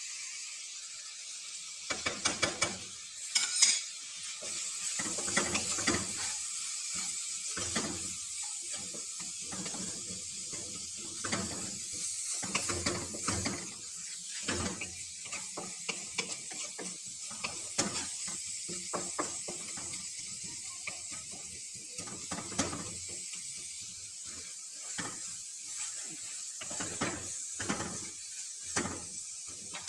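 Chopped onions, tomatoes and spices sizzling in oil in a kadhai, with a steady hiss. Over it, a wooden spoon scrapes and knocks against the pan in quick, irregular stirring strokes as the masala is fried.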